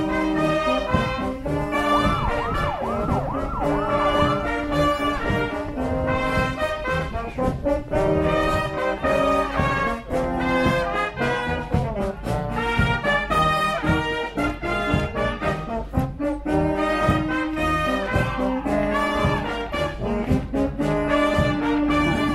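Brass band playing a march with a steady drum beat: a volunteer fire brigade's wind band of trumpets, trombones and tuba marching with the procession.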